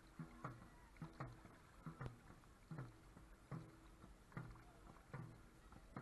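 Dragon boat crew paddling in time: faint, even paddle strokes in the water, about one every 0.8 seconds.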